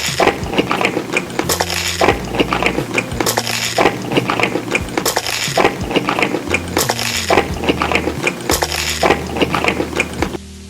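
Close-miked eating of a dessert: dense, irregular crunching and clinking, with louder bursts every second or two. Quiet background music runs underneath.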